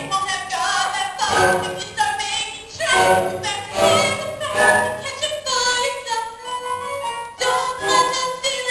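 Stage musical number: cast voices singing over instrumental accompaniment, with several long held notes in the second half.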